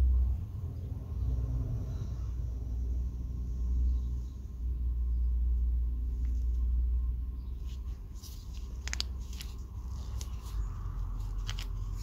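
A steady low rumble, with a few light clicks and taps in the second half as the copper contact and plunger of a Denso starter solenoid are handled in gloved hands.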